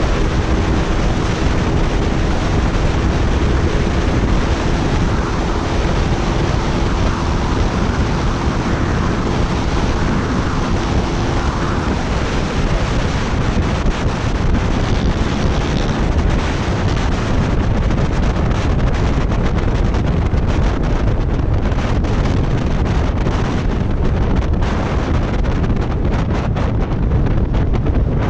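Heavy wind noise on a helmet or bike-mounted action camera at about 125 kph on a Yamaha Mio 4-valve 205cc scooter, its quiet "silent" exhaust heard only as a faint steady drone under the wind for the first twelve seconds. The rushing eases toward the end as the scooter slows.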